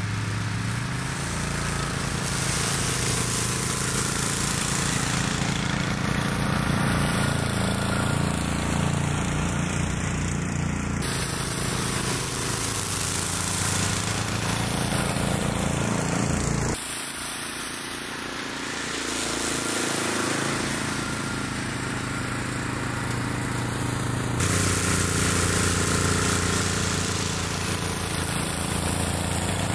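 An ATV and the tow-behind Rammy brush cutter, which has its own small petrol engine on the deck, running steadily while mowing tall grass. The engine note shifts a little under load, with a few abrupt changes and a short quieter dip about two-thirds through.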